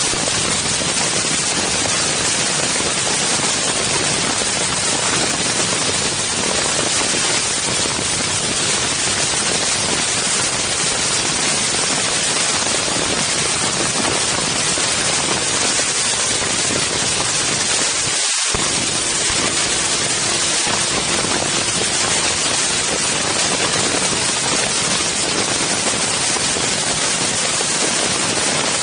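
Loud, steady wind noise rushing over the microphone of an Insta360 One X camera, a dense hiss with no let-up. A faint steady hum shows through for a few seconds about two-thirds of the way in.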